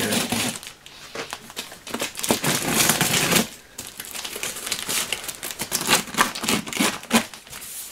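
Clear plastic wrap and packing tape being slit and peeled off a cardboard shipping box, tearing and rustling in irregular spells with short pauses between pulls.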